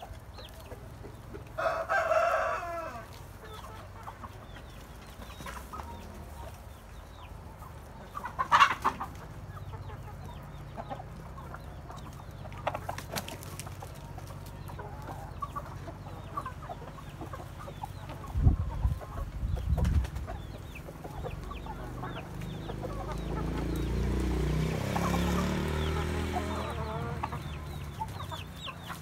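Hens and a rooster clucking as they peck at freshly pulled greens, with a loud call about two seconds in and another around nine seconds. A few heavy low thumps come a little past the middle.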